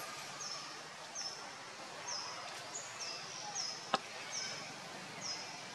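A short, high call repeated about once a second, each call dipping slightly in pitch, over faint outdoor background noise. A single sharp click comes about four seconds in.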